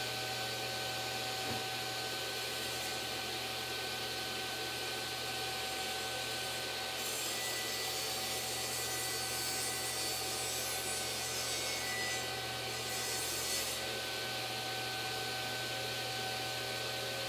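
Table saw running steadily while its blade trims a sliver off the end of a solid-wood cabinet door frame on a panel-cutting sled. The cut adds a hiss from about seven seconds in until nearly fourteen seconds.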